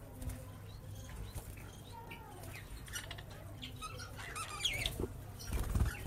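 A flock of budgerigars chirping and chattering: many short, high, squeaky calls and little warbles, busiest a few seconds in. A low rumble comes near the end.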